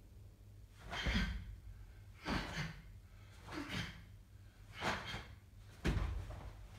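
A karateka's sharp breaths out, one with each technique of the Heian Nidan kata: five short bursts about a second and a quarter apart, each with a low thud.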